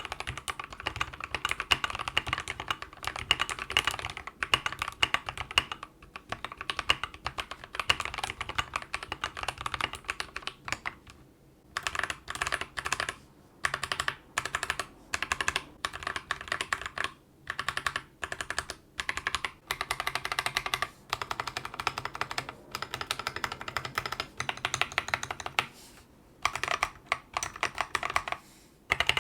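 Mechanical keyboard with lubed Akko CS Jelly Black switches being typed on quickly and continuously. After a brief pause, a board with Akko CS Jelly Blue switches is pressed in short separate runs of keystrokes with gaps between them.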